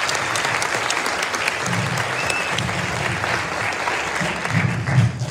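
Audience applauding at the end of a song, dense and steady, dying away near the end.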